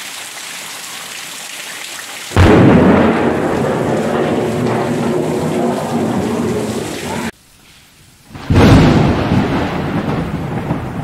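Heavy rain hissing steadily. About two seconds in, a sudden loud clap of thunder breaks in and rumbles on over the pouring rain. The sound cuts off for about a second, then a second loud thunder crash hits and rumbles on with the rain.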